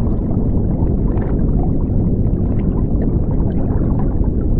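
Underwater ambience sound effect: a steady, deep rumble with bubbling and gurgling.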